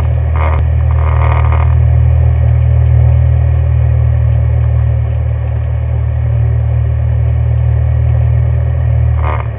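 A Cessna 182 light aircraft's piston engine and propeller running steadily as a loud, low drone, with a few short bursts of higher noise near the start and just before the end.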